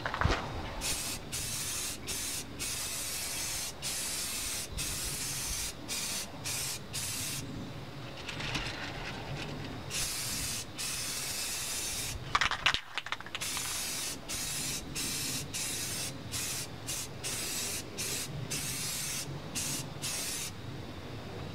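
Aerosol spray-paint can hissing in a string of short and longer bursts with brief gaps between them, with a short knock near the middle.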